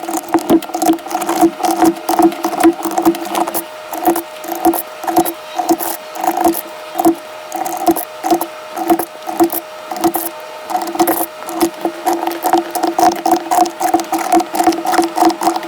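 Mechanical keyboard being typed on quickly: a dense, uneven stream of loud keystroke clacks, several a second, with a faint steady hum underneath.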